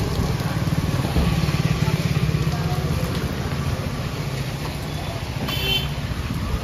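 Motorcycle and scooter engines running as they pass along a wet street, a steady low pulsing drone that is strongest in the first few seconds. About five and a half seconds in comes a brief high-pitched tone.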